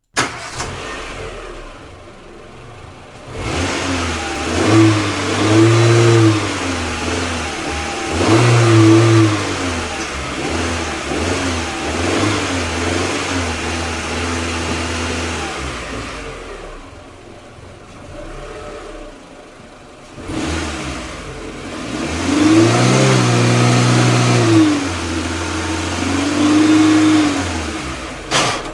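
Old car engine running and revved repeatedly: the pitch rises and falls back in several blips, with a calmer running stretch in the middle.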